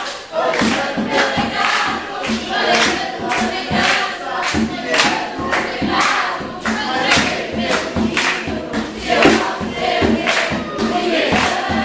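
Background music: a song with a steady drum beat of about two hits a second and a group of voices singing.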